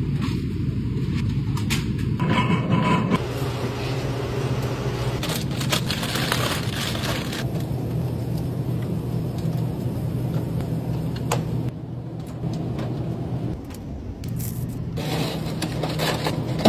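Steady low hum of supermarket refrigerated cases, with scattered knocks and rustles as cartons and packages are handled and set on the shelves.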